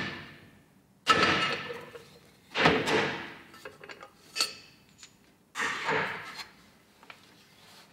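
A new forward prop shaft bearing race being tapped into a Johnson 30 HP outboard gearbox housing with the end of a hammer handle to start it square in its bore. There are three sharp knocks about a second and a half apart, with a lighter one between, and each rings on and fades.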